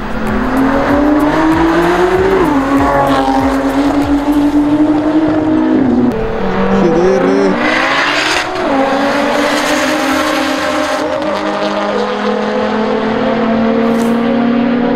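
Drag-racing cars accelerating hard down the strip at full throttle. The engine note climbs and drops back at gear changes several times, then holds a high, slowly rising pitch.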